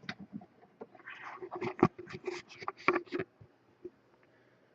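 A quick run of light clicks and taps from small objects being handled, lasting about three seconds. One more sharp tick comes near the end.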